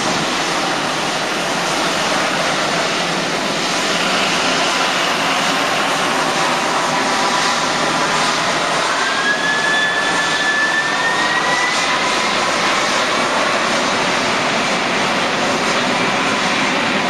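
Boeing 777 twin-engine jet taxiing, its turbofan engines giving a steady rush of noise with a thin whine that climbs a little in pitch past the middle.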